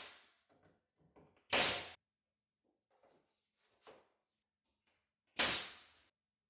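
Sharp, loud bangs with a short ring-out from work on the cabinets: one dying away at the start, then two more about a second and a half and five seconds in, with faint small knocks and clicks between.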